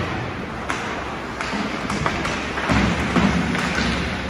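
Ice hockey play in a rink: sharp clacks of sticks and puck on the ice several times, over a steady hiss of skates and arena noise, with a louder stretch of low thuds a little under three seconds in.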